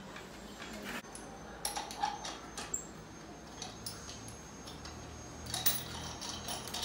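Scattered light metallic clicks and clinks as a spirit level and a core-drilling machine's mount are handled and set against a wall; the drill motor is not running.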